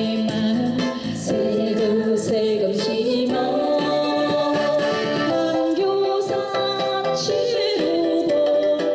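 Korean trot song played over a PA system: a backing track with a woman singing the melody.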